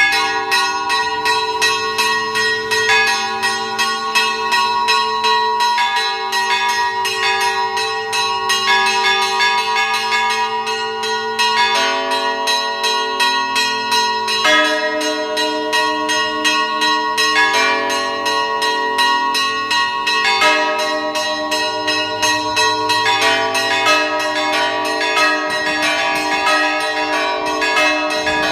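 Peal of a 462-bell monastery belfry: many bells struck in rapid, overlapping strokes, high small bells ringing over deeper sustained ones. It begins abruptly with a loud stroke, and the set of pitches changes every few seconds.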